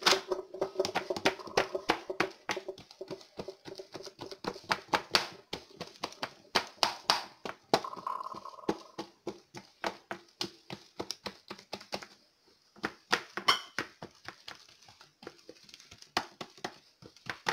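Hands patting and pressing oiled dough thin against a wooden tray: a rapid, irregular run of sharp slaps and taps with a couple of short pauses.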